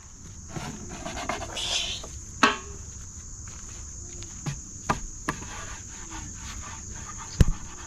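A steady, high-pitched insect chorus, with a few scattered knocks and taps.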